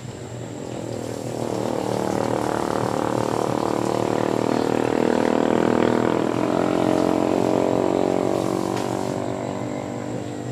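A passing engine drone that swells over a few seconds, holds loud through the middle, then slowly fades.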